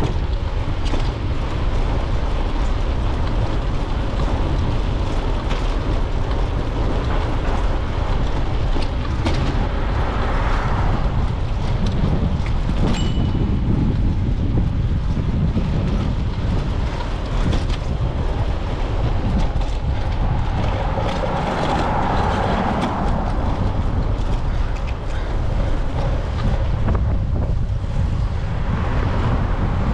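Wind buffeting the microphone of a bicycle-mounted GoPro Hero 9 as it rides along, a steady low rumble.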